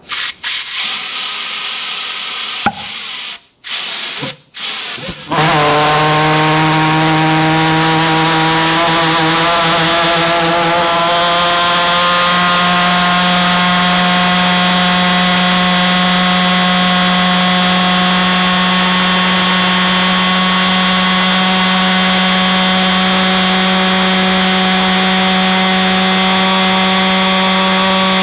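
Single-chamber gasoline pulsejet engine being started: a loud hiss of air blown into its intake, cutting out briefly twice, then the engine catches about five seconds in and runs with a loud, steady buzzing drone. The pitch rises slightly over the next several seconds and then holds.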